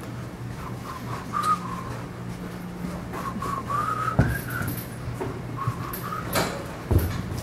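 A person whistling a wavering tune in three short phrases. A few sharp knocks come in the second half, and a steady low hum runs underneath.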